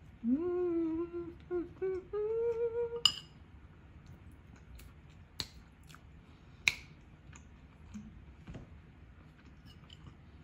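A voice hums a drawn-out 'mmm' of enjoyment over the food for about three seconds, its pitch sliding up at the start and stepping higher near the end. Then a spoon and fork clink sharply against a ceramic bowl three times.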